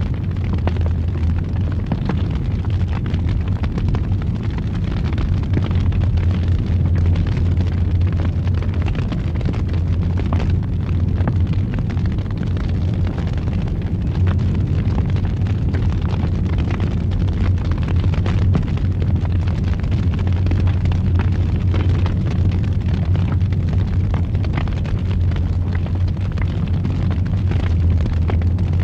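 Wood campfire burning: a steady low roar of the flames with frequent sharp crackles and pops.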